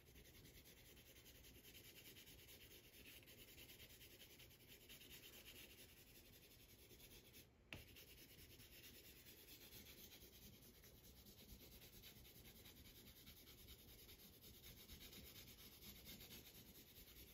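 Faint, continuous scratching of a Prismacolor pencil stick shading colour back and forth on paper over foam board, with one brief click about eight seconds in.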